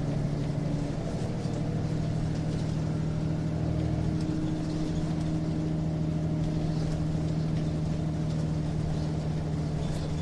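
Nissan Diesel UA city bus (KL-UA272KAM, ZF Ecomat four-speed automatic) running, heard from inside the passenger cabin: a steady engine and driveline drone with a held low hum and a higher tone that steps up slightly about a second in.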